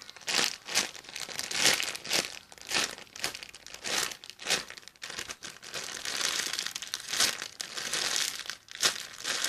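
Crinkly plastic packaging of a squishy toy being handled and crumpled, in irregular rustling bursts.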